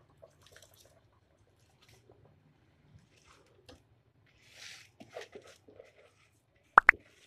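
Rice poured into a pot of boiling stock, with faint wet patter and soft splashes as the grains land in the liquid. Near the end, two short rising bloop sound effects, louder than the pouring.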